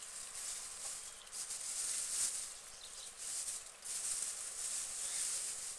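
Guinea pig crunching and chewing a lettuce leaf: a crisp, crackly munching in long stretches with short pauses.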